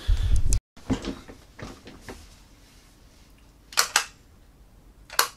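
A heavy low thump of the camera or microphone being handled, then an abrupt cut, followed by scattered sharp clicks, with a quick pair of clicks a little before the end.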